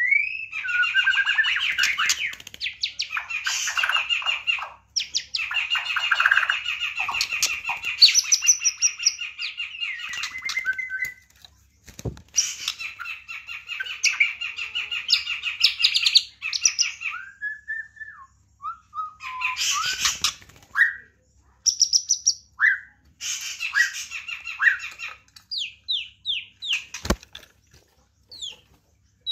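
White-rumped shama (murai batu) singing long, rich phrases of fast warbles, trills and gliding whistles, with a few short pauses. Two sharp taps cut in, one about midway and one near the end.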